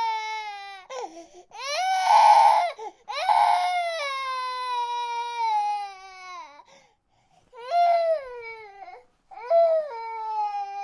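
Infant crying in long, falling wails: several cries, the loudest about two and three and a half seconds in, with shorter cries near the end after brief pauses for breath.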